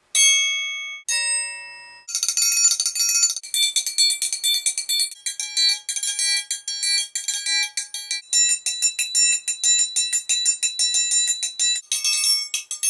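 Steel triangle struck with a metal beater: two single ringing strokes, then from about two seconds in a fast rhythmic pattern of many short, partly damped strikes.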